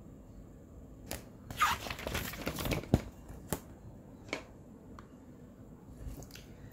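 A picture book's paper page being turned: a rustle of paper about one and a half seconds in, lasting over a second, with several sharp clicks and taps around it.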